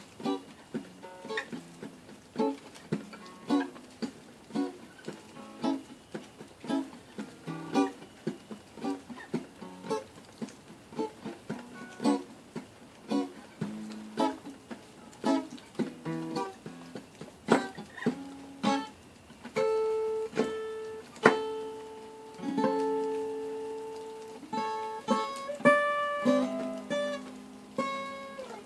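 Acoustic guitar played by hand: a steady, even pattern of plucked chords, then from about two-thirds of the way in, slower notes and chords left to ring out.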